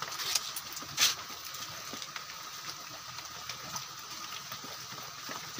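Piglets moving about on the pen floor: scattered light taps and scuffs from their trotters, with a short sharp scuffling noise about a second in, over a steady background hiss.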